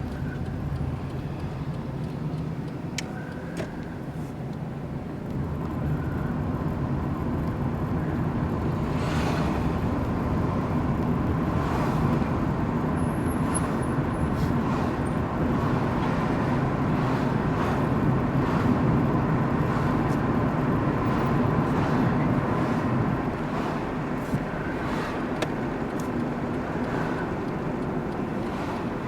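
Car driving, heard from inside the cabin: steady road and engine noise that grows louder over the first several seconds, holds, then eases off a few seconds before the end.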